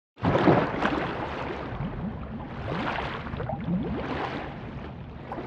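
Underwater sound effect: a rush of water noise full of bubbles, heard as many short blips gliding upward in pitch. It starts suddenly and swells and eases a few times.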